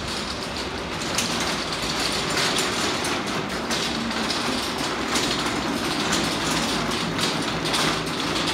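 Metal shelving trolley pushed across a tiled floor: casters rolling and the steel frame rattling in a steady clatter, louder from about a second in.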